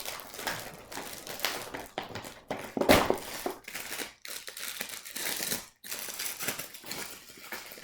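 Plastic packaging crinkling and rustling as a hair-styling attachment is handled and unwrapped, with one louder knock about three seconds in.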